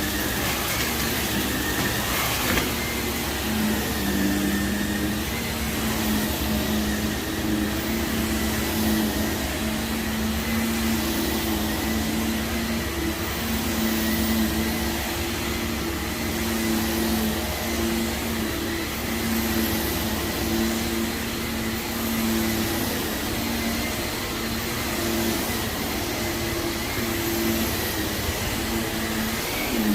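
Vacuum cleaner running steadily over heavily soiled carpet, its motor hum wavering slightly in pitch, with a thin high whine over it.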